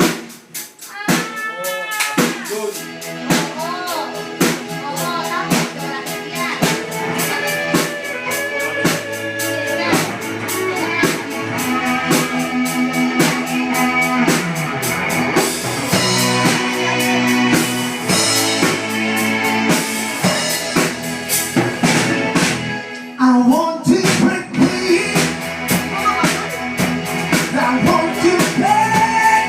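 A pop-rock song with a sung vocal over drum kit and guitar, keeping a steady beat, with a brief break about 23 seconds in before it carries on.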